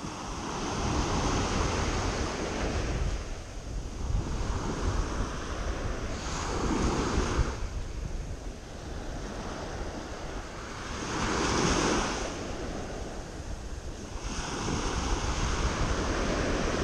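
Small sea waves breaking on a sandy beach and washing up the sand, swelling and fading about every four to five seconds, with wind rumbling on the microphone.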